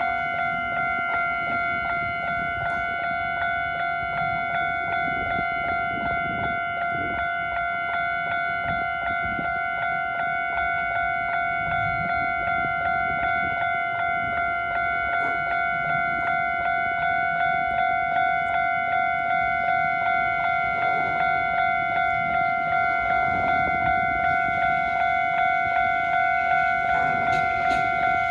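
Japanese level-crossing electronic warning bell ringing in a fast, even repeating ding: the crossing's standard alarm tone set to its quicker pace. In the last few seconds a train can be heard drawing up to the crossing, its rumble rising under the bell with wheel clicks near the end.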